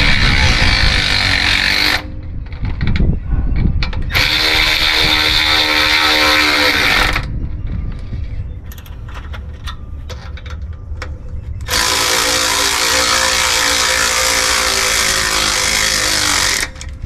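Milwaukee cordless electric ratchet running in three long bursts, with quieter clicking and handling between them. It is driving down the bolts of a sway-bar bushing bracket on the axle.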